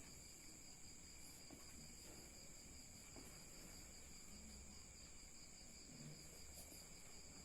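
Near silence: room tone with a faint, steady high-pitched whine of several tones, one of them slightly pulsing.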